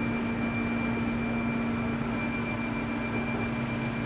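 Steady hum of machine-shop machinery, with a constant low tone and a fainter high whine over a noise floor.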